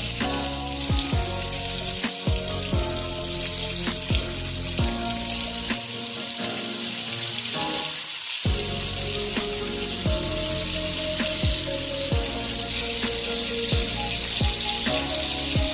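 Background music with a deep falling bass beat, over the steady hiss of ground-beef burger patties sizzling in hot oil in a stainless steel frying pan.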